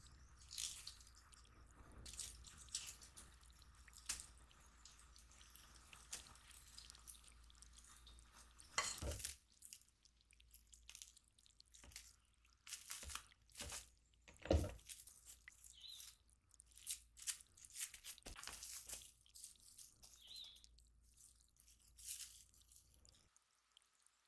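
Quiet handling of thick chocolate cookie dough: a wooden spatula scraping and stirring it in a glass bowl, then plastic wrap crinkling as the dough is wrapped and rolled. Two louder thumps stand out, about nine and fourteen seconds in.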